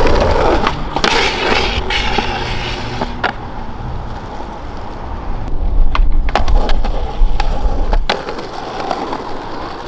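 Skateboard wheels rolling on concrete, with several sharp clacks of the board popping and landing. The rolling rumble stops about eight seconds in.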